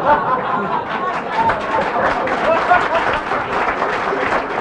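Audience laughing and clapping, a dense patter of hands under scattered voices.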